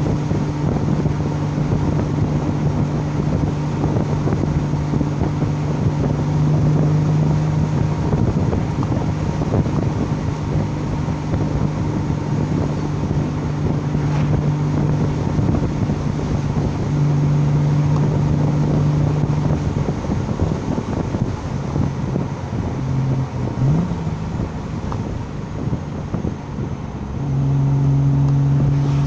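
Straight-six car engine running on new carburettor needles fitted to cure a misfire. The engine note holds steady and steps up and down in pitch several times, with a short rise about three-quarters of the way through, over wind noise on the microphone.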